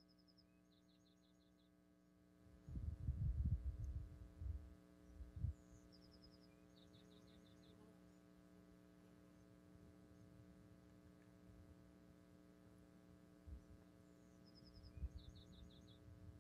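Faint, steady electrical hum with a small bird singing three times, each song a short high falling note followed by a quick ticking trill. Low irregular rumbles come about three seconds in and again near the end.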